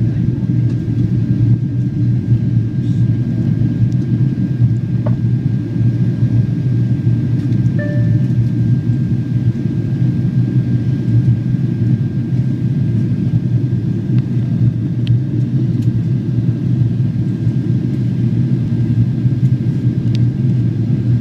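Steady low roar inside the cabin of a Boeing 767-400ER in descent: engine and airflow noise, with a faint steady high whine and a few small clicks.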